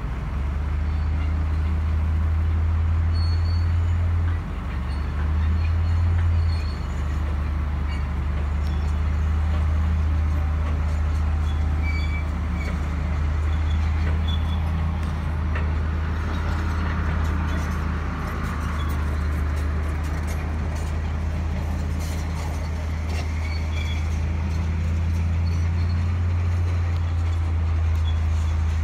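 GMC bucket truck running with a steady low drone while its boom is hydraulically raised and swung. The drone dips briefly about four seconds in.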